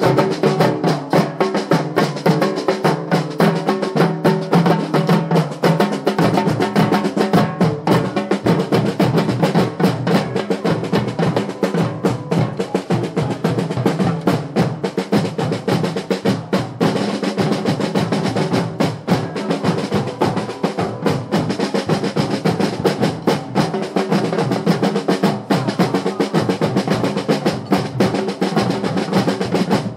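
A carnival marching drum band: many slung drums, snare-type and bass drums, beaten with sticks by players on the move, in a fast, dense, unbroken beat.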